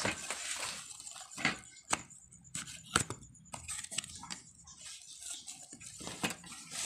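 A cardboard box being handled and its flap pulled open: scattered rustles with several sharp clicks and taps.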